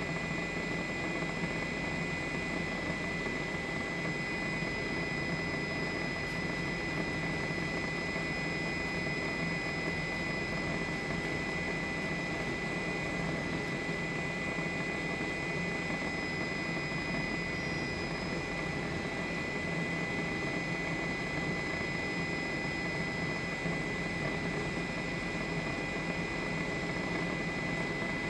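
Helicopter engine and rotor running steadily, an even rushing noise with a constant high whine.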